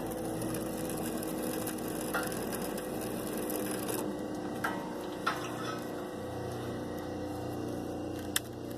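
Wire stripper working through old copper wire: a steady mechanical whir with a few sharp clicks and knocks along the way.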